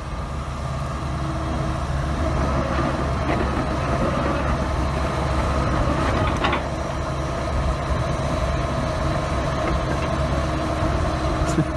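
Heavy vehicle engine running steadily at low speed, a constant low hum.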